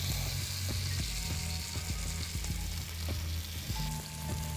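Masala-coated kingfish steaks and curry leaves shallow-frying in hot oil in a nonstick pan. The oil sizzles steadily with many small crackles and pops, over a low steady hum.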